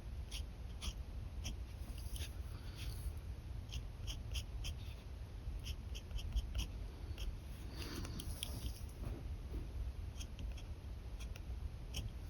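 Pen scratching on paper in quick short strokes, several ticks a second, with a longer drawn stroke about eight seconds in, over a steady low hum.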